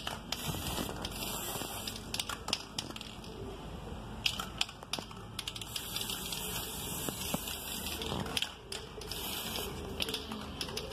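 Aerosol can of metallic spray paint hissing in bursts with short pauses as paint is sprayed, with a few sharp clicks in between.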